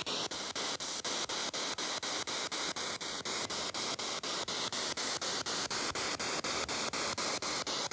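SB7 spirit box sweeping through radio stations, heard through a small portable speaker: a steady hiss of static chopped about four times a second by the sweep, with no voice or music coming through.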